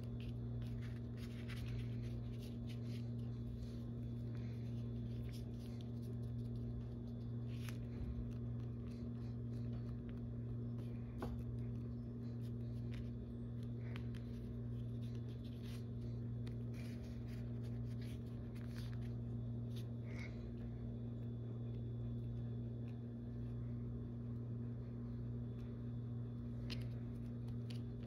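Sculpting tools scratching and scraping on Sculpey polymer clay in small, irregular strokes, over a steady low hum.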